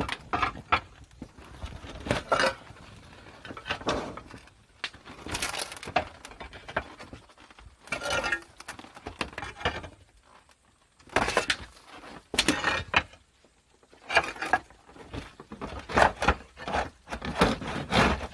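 Irregular clattering, knocking and scraping of roofing materials being handled: clay roof tiles being set down on a corrugated tin sheet laid over a hole in the roof, in several separate bouts.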